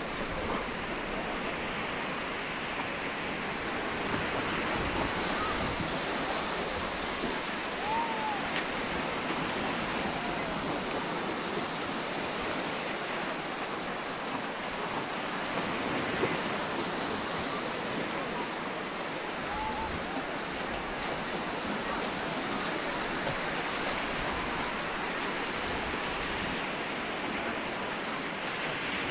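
Steady wash of sea surf breaking on a sandy beach, with faint voices in the background.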